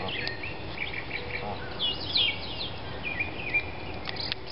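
Small birds calling from the trees: a busy run of short, high chirps and down-sliding calls, some overlapping.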